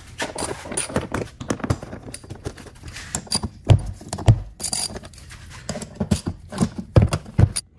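Hand ratchet with a 10mm socket clicking as the frunk trim bolts are backed out, with several louder knocks from the tool against the plastic trim about halfway through and near the end.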